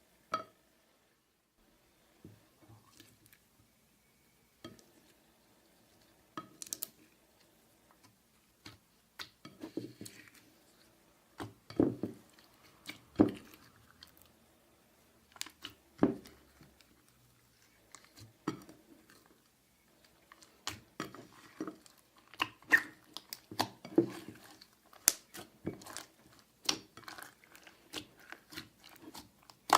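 Hands kneading and stretching clear slime, giving irregular sticky squelches and sharp pops. The sounds are sparse at first and come thicker in the second half.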